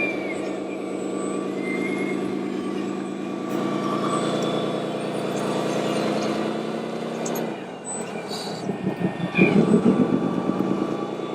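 Scale RC truck's sound module playing a truck diesel engine, running steadily, dying away about seven and a half seconds in, then a louder throbbing burst near the end.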